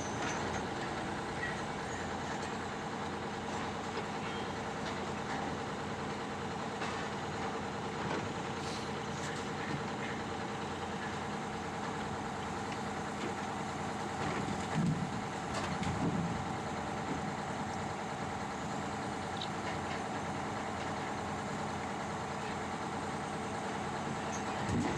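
A heavy machine's engine running steadily, with a couple of louder low knocks about two-thirds of the way through.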